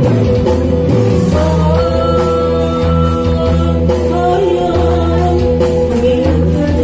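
A man singing a Sundanese song into a microphone, amplified through a PA system, over backing music with a steady bass. The vocal holds long notes.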